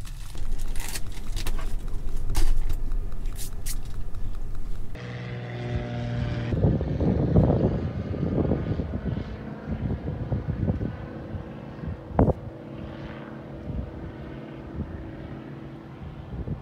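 A few seconds of rustling and sharp clicks, then the steady drone of a propeller airplane's engines flying overhead. The drone is loudest a couple of seconds after it starts and then grows fainter as the plane moves away, with one sharp click partway through.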